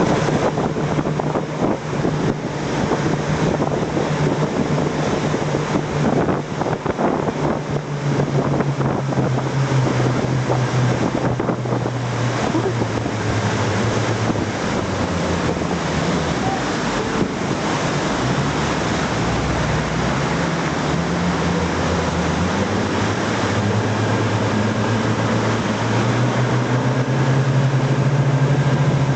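Motorboat engine running under way, its pitch dropping for a while in the middle and rising again near the end as the throttle changes, over rushing water and wind buffeting the microphone.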